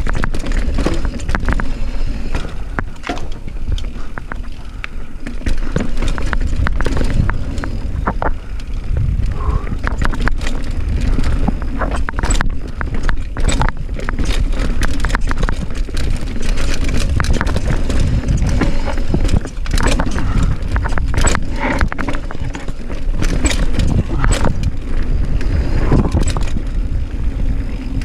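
Mountain bike riding down a rough downhill trail: a steady low rumble of tyres over the ground, with constant clicks and clatters from the bike over rocks and roots.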